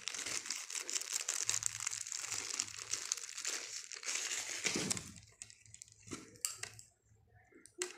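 Plastic wrapping crinkling as multimeter test probes are unwrapped and handled, dense for about the first five seconds, then thinning to a few scattered rustles and light clicks.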